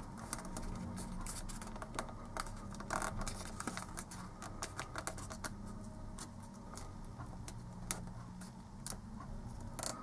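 Origami paper being folded and creased by hand: quiet, irregular crinkles and light ticks as the paper is handled and pressed flat, over a faint low hum.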